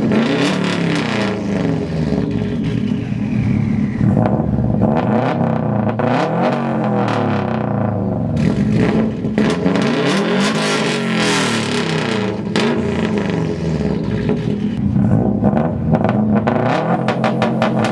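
Straight-piped Subaru WRX and built Subaru STI turbocharged flat-four engines revving hard in turn, the pitch climbing and dropping again and again, very loud. Near the end the revs break into a quick run of sharp crackling pops.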